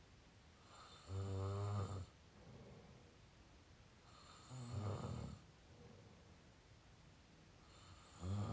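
Snoring through the mouth: three low-pitched snores, each about a second long and about three and a half seconds apart, the third starting near the end.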